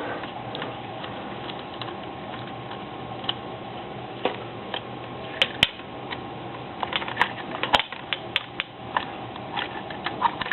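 Irregular sharp clicks and small metallic knocks as the parts of an AK-47 75-round drum magazine are handled and pried apart, a few louder knocks in the middle, over a faint steady hum.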